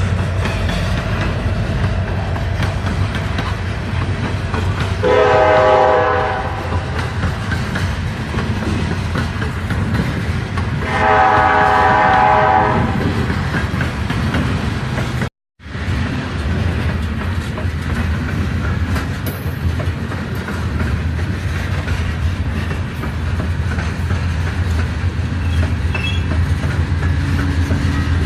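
Freight train of loaded coal hoppers rumbling steadily past, with wheel clatter on the rails. The locomotive's five-chime Nathan K5LLA air horn blows twice: a short blast about five seconds in and a longer one about eleven seconds in. The sound drops out completely for a moment about halfway through.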